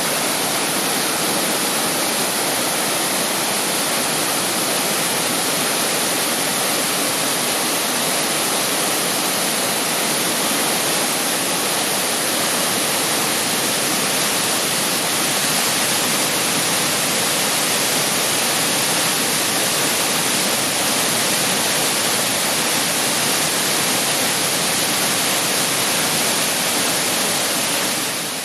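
Thi Lo Su waterfall: a steady, loud rush of falling water, even and unbroken throughout.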